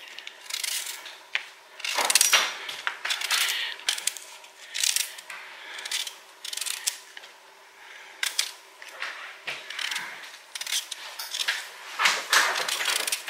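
Hand peeler scraping the skin off a raw sweet potato in short, irregular strokes, about one a second, with strips of peel dropping onto a paper plate.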